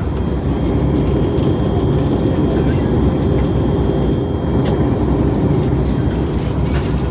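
Steady in-cabin noise of an Airbus A321neo in descent: an even rush of airflow and engine drone, heaviest in the low range, with a few faint clicks.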